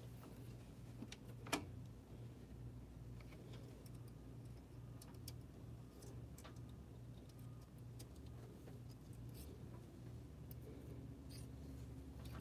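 Faint clicks and taps of small metal parts being handled as a steel carriage rod is fitted into a printer's sheet-metal frame, over a low steady hum. One sharper click comes about one and a half seconds in.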